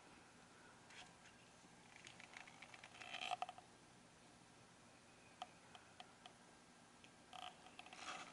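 Near silence broken by faint, quick wet clicks and rasps of a Scottish Fold cat licking and nibbling a hand, in a spell about two to three and a half seconds in and again near the end.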